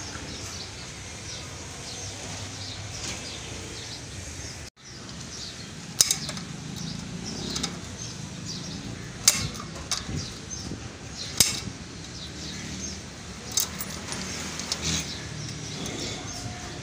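Hand tools clinking on a truck's steel axle spindle and brake parts: a handful of sharp metallic clicks a few seconds apart, over steady background noise.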